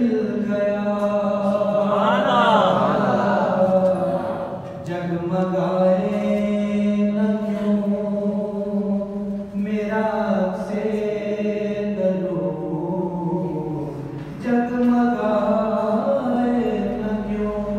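A man reciting a naat, an Urdu devotional poem in praise of the Prophet, unaccompanied into a microphone. He sings in long drawn-out phrases, with short pauses for breath.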